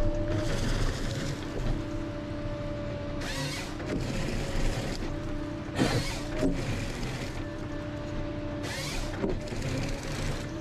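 Ponsse Scorpion King forest harvester working: a steady engine and hydraulic hum, with two spells of loud hissing a few seconds in and near the end, and a couple of knocks in the middle.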